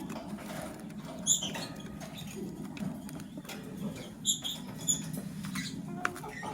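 Lovebird giving three short, sharp, high chirps, one about a second in and two close together past the middle, amid light clicking and scratching.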